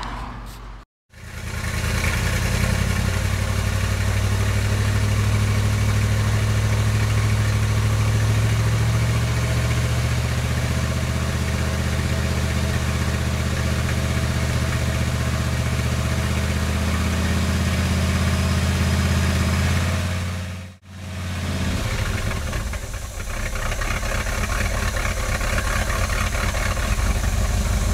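Chevrolet 350 small-block V8 running steadily. The sound breaks off for a moment about a second in and again about 21 seconds in, then the engine runs on, a little quieter at first.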